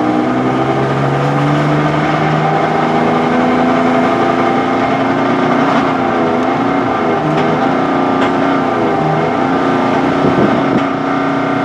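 2009 Nissan Frontier's V6 engine running loud under heavy throttle as the truck pulls away, a steady drone that barely rises in pitch. The engine is misfiring on cylinders 2, 4 and 6 and cannot pull the truck past about 30 mph.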